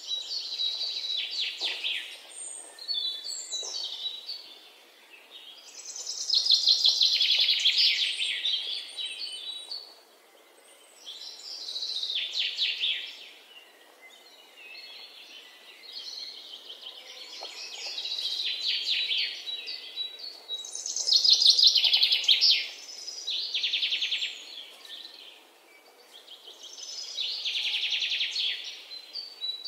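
Songbird singing in a run of rapid, high-pitched trilled phrases, each a second or two long, with short pauses between them.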